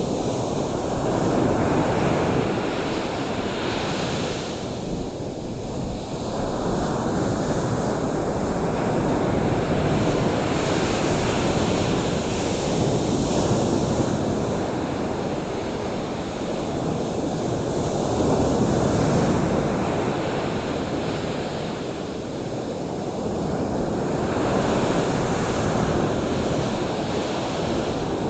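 Ocean surf washing in steadily, the roar swelling and easing every few seconds, with wind.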